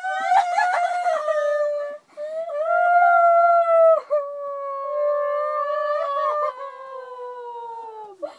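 A girl's high voice howling wordlessly in long held notes, each about two seconds or more, the last one sliding down in pitch near the end.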